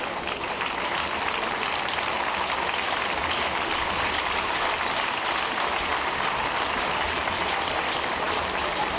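Arena crowd applauding steadily, a dense, continuous clatter of many hands clapping.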